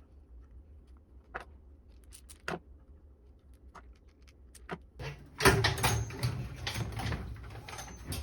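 Hands working plastic tubing and hose fittings: a few sparse light clicks and taps, then from about five seconds in a louder, busier run of clattering and rustling handling.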